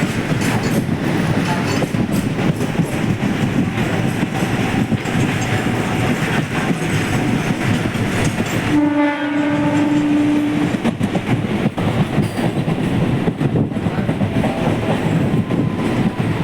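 Train passing close by on the track, its wheels clattering and rumbling over the rails. About halfway through, the train's horn sounds one steady blast of roughly two seconds.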